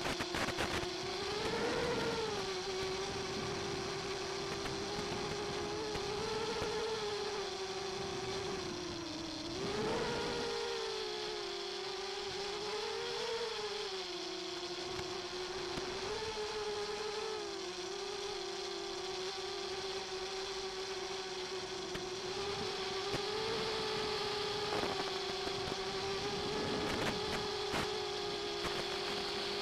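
Racing mini-quadcopter's electric motors and propellers buzzing in flight, their pitch rising and falling with the throttle, heard over the FPV video link's audio. A few short crackles come near the start and near the end.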